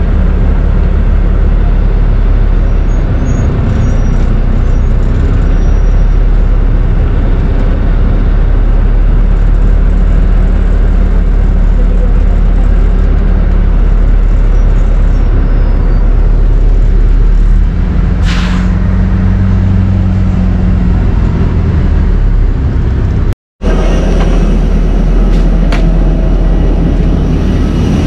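Airport apron passenger bus running, a loud, steady, low engine drone heard from inside the coach. About two-thirds of the way through comes a short hiss of air from the bus's pneumatics, and near the end the sound cuts out for a moment.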